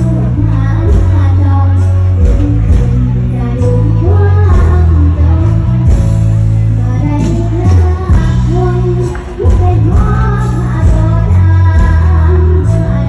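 Thai mor lam music: a singer's voice gliding over a loud band with heavy bass.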